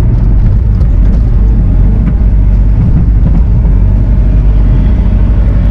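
Diesel engine of a Bobcat compact machine running steadily under load, loud and close, with a faint steady whine joining about three and a half seconds in.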